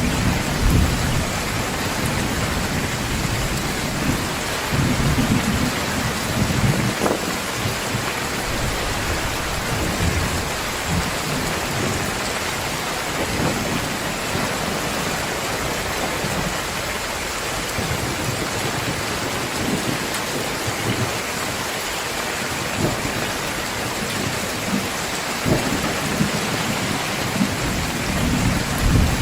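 Heavy rain falling steadily in a downpour, with low rolls of thunder rumbling in and out underneath, the strongest near the start, around five to seven seconds in, and near the end.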